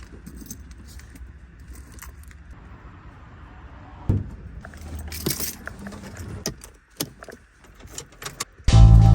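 Small metal things jingling, with scattered clicks and a sharp thump about four seconds in. Music comes in loudly near the end.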